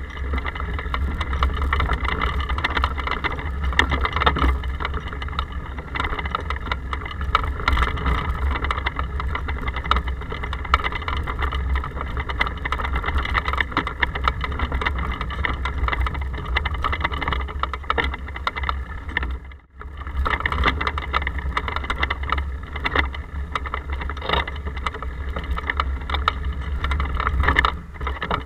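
Riding noise of a bicycle heard through an action camera in its case mounted on the rear rack: a steady low rumble of wind and road vibration with frequent small knocks and rattles. It cuts out briefly about two-thirds of the way through and falls away near the end.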